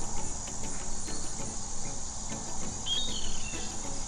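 Outdoor recording of a white tern: a short, arched bird call about three seconds in, with a fainter one near the start, over a steady high chirring of crickets.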